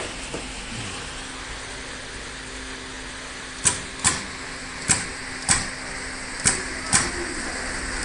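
Wire stripping and terminal crimping machine cycling: six sharp clacks, loosely in pairs, starting about three and a half seconds in, over a steady low hum.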